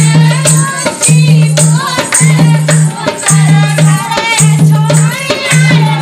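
Dehati folk dance song: a voice singing over a steady percussion beat with sharp, rattling strokes and a low note that repeats about once a second.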